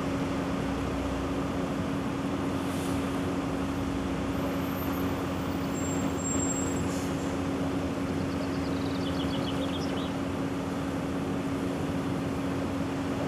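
Heavy lorry's diesel engine running steadily at low revs, an even low hum as the truck creeps along with its load.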